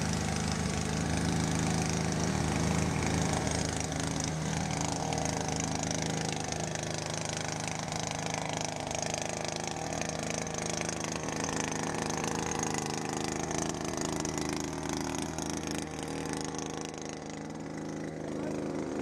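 Solarcleano F1 solar-panel cleaning robot running, its rotating roller brush sweeping across the panels over a steady motor hum, the pitch drifting slowly up and down.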